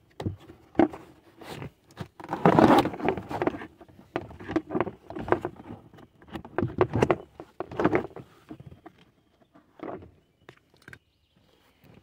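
Hands working a plastic B-pillar trim panel and seatbelt webbing into place in a car: irregular knocks, taps and scraping, with a quiet spell near the end.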